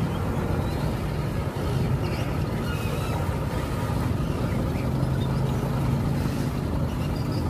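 Loaded Mitsubishi Fuso 220PS dump truck's diesel engine running steadily under load as the truck crawls through deep mud.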